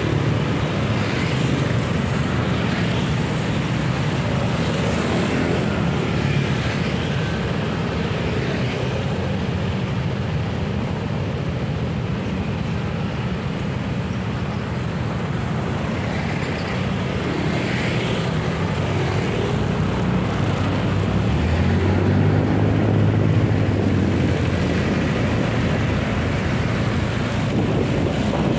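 Road traffic of cars and motorbikes heard from within the traffic flow, a steady engine and road noise. An engine hum grows louder for a few seconds about three quarters of the way through, as of a vehicle pulling away.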